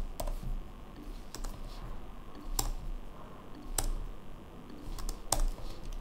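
Typing on a computer keyboard: irregular, scattered keystrokes, with about five louder key presses spaced a second or so apart.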